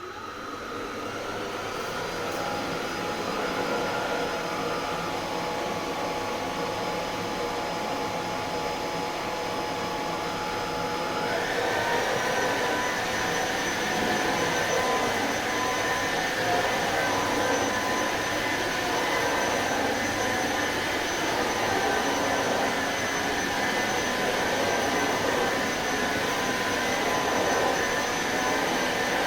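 Electrolux Pure F9 cordless stick vacuum running over a shag rug. Its motor whine builds to a steady pitch over the first few seconds, then steps up to a higher, slightly louder pitch about a third of the way in and holds there.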